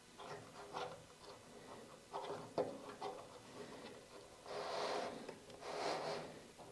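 Flexible ribbed dust hose being pushed and worked onto a plastic blast gate port by hand: scattered clicks and rubbing, a sharp click about two and a half seconds in, and two longer rubbing swishes near the end.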